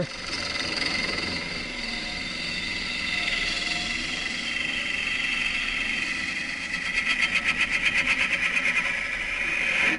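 Jet Mini wood lathe spinning a green-wood goblet while a gouge cuts it: a steady scraping hiss, which turns into a rapid pulsing scrape of about six strokes a second for the last three seconds.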